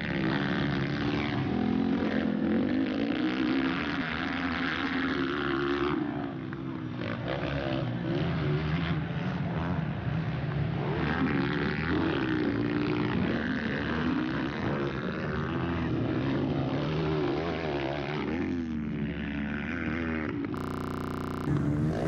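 Four-stroke single-cylinder 230cc dirt bikes racing on a motocross track, their engines revving up and dropping back again and again as the riders work the throttle over the jumps.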